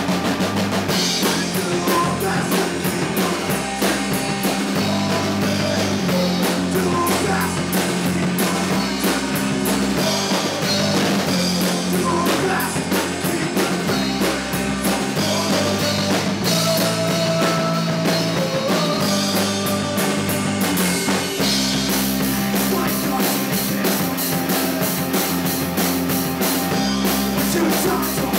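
Rock band playing a song live in a rehearsal room: drum kit with busy cymbals, electric bass, electric guitar and a male lead vocal.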